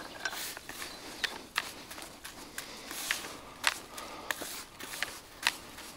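Irregular sharp clicks and taps of small hard items being handled, a dozen or so, the loudest two about three and a half and five and a half seconds in, over a light rustle.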